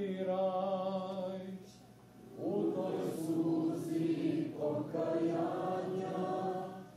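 A group of young people singing a church chant together from song sheets, in long held notes. One phrase ends about a second and a half in; after a short pause the next phrase begins.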